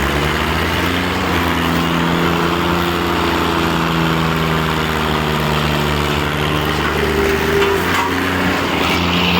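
Diesel tractor engines running steadily under load during a tractor pulling contest, with an even, unbroken engine note.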